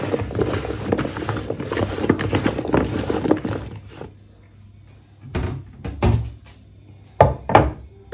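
Sliced potatoes coated in spices being tossed and rubbed by hand in a bowl, a dense, irregular wet rustling that stops about three and a half seconds in. Four dull thunks follow in two pairs, about five and seven seconds in.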